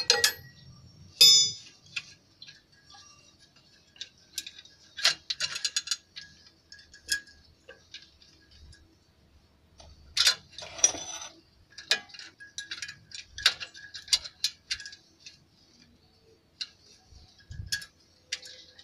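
A spanner and metal engine parts clicking and clinking irregularly as the fuel injection lines and injectors are fitted on a Nissan Diesel V8 engine that is not running. The clinks cluster a little after the start and again around the middle.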